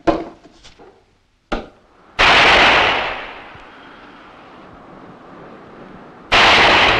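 Two loud revolver shots about four seconds apart, the first a little over two seconds in with a long echo trailing off after it, the second near the end. A couple of short sharp knocks come before them.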